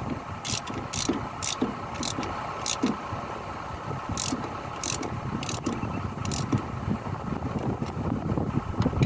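Hitachi Zaxis excavator's diesel engine running steadily, with about nine short, sharp, high clicks spread over the first six seconds or so.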